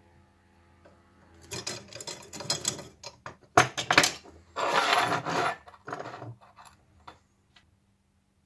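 Small steel parts (a threaded rod with nuts and a screw) being handled and fitted together on a wooden workbench: irregular scraping and rattling with sharp metal clicks and knocks, loudest in the middle, tailing off into a few light taps.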